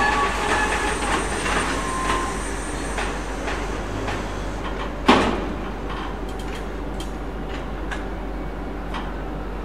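Freight train of container flat wagons rolling slowly past, its wheels squealing faintly at first, with the squeal dying away over the first two seconds. About five seconds in there is a single sharp clank, followed by lighter clicks of wheels over the track about once a second.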